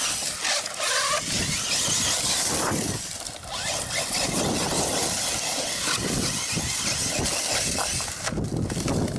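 A 1/8-scale electric RC truggy driving hard over rough, rocky ground: its motor whines up and down with the throttle over a steady hiss of tyres and thrown gravel, with knocks and rattles from the suspension. The hiss drops away shortly before the end as it slows.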